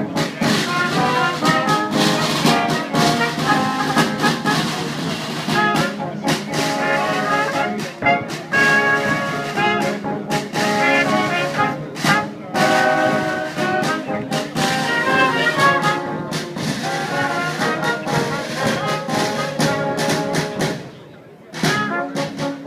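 Brass ensemble of trumpets and trombones playing live. The band breaks off briefly near the end, then comes back in.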